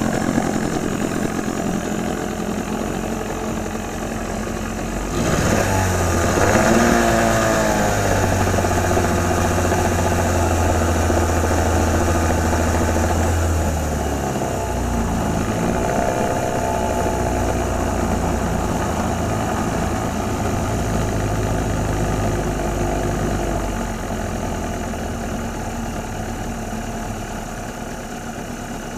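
1962 Evinrude Lark IV 40 hp two-cylinder two-stroke outboard running in a test bucket after a carburettor rebuild. It revs up about five seconds in, drops back briefly near the middle, picks up again, then settles lower toward the end. The owner says it still doesn't sound right.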